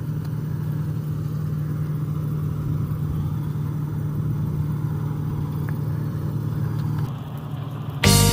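Combine harvester's engine running with a steady low drone. Guitar music comes in loudly right at the end.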